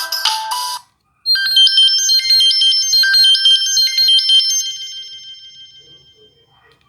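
Samsung SGH-T289 Gravity Q mobile phone ringtones: one ringtone cuts off under a second in, and after a brief gap the next starts, a pattern of quick high repeating notes that fades away over its last couple of seconds.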